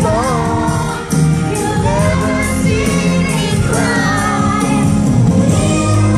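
Amplified stage-show music with a sung melody over a full accompaniment, played loud through a theatre sound system; the sound dips briefly about a second in.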